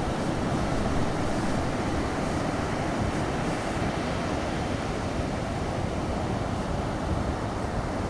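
Steady rush of ocean surf washing on a beach.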